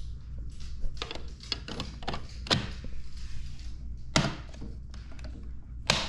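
Plastic decorative wall plate being fitted and snapped onto its screw-on mounting plate around a receptacle: a series of sharp plastic clicks and knocks, about six in all.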